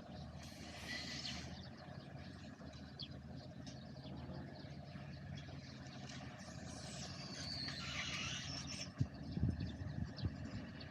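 An agricultural machine's engine running steadily with a low hum. A few sharp knocks come about nine seconds in.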